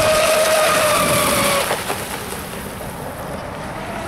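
Radio-controlled speedboat's motor running at speed, a steady high note over a hiss that slides slightly lower and then drops away about a second and a half in, leaving a quieter sound; the note comes back faintly near the end.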